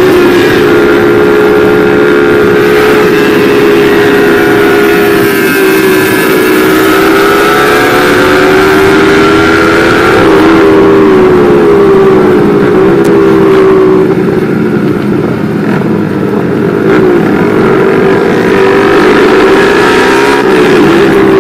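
Motorcycle engine running at high, steady revs while riding, its pitch wavering slightly as the throttle eases and opens.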